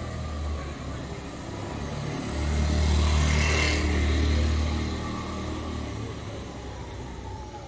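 A scooter passing close by. Its motor hum grows to a peak about three seconds in and then fades away.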